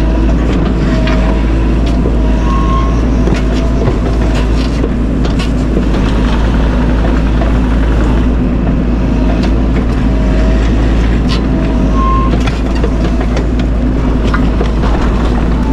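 Bobcat E42 mini excavator's diesel engine running steadily under work, with scattered clicks and knocks from the machine as it digs.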